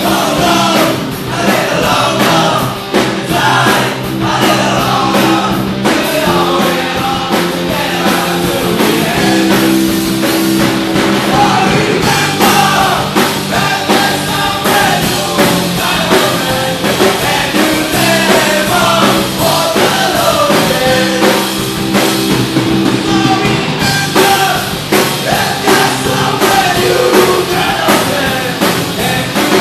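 Oi! punk rock band playing loud and steady, with a singer over drums and held guitar and bass chords.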